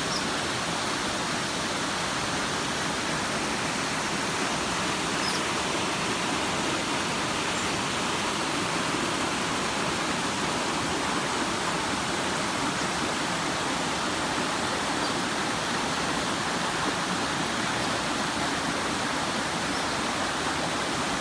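Waterfall cascading: a steady, unbroken rush of falling water.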